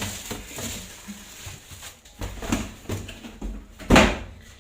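Packaging being handled while an electric pressure cooker is unboxed: irregular rustles and light knocks, with one loud thump about four seconds in.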